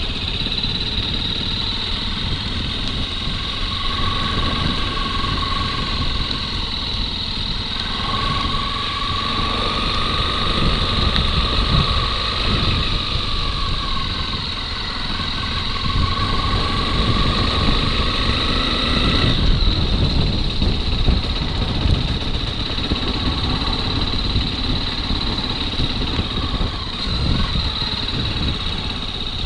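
Motorcycle engine running steadily during a ride, with a dense low rumble, a thin whine that rises and fades in the middle, and a steady high hiss throughout.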